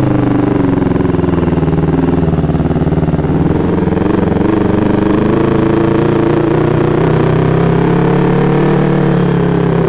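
Yamaha MT-25's 250 cc parallel-twin engine running steadily under way, its pitch rising a little in the second half, with tyres crunching over gravel and clay.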